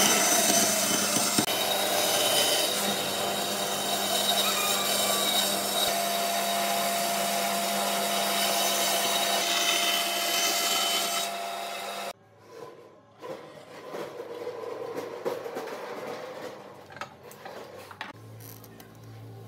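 Bandsaw running and cutting a circle through a pine board, a steady loud cutting noise over the motor's hum. It cuts off abruptly about twelve seconds in, followed by fainter knocks and rubbing.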